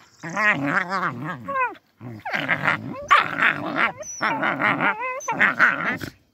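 Puppies play-fighting, growling and yipping in about five short, wavering bouts.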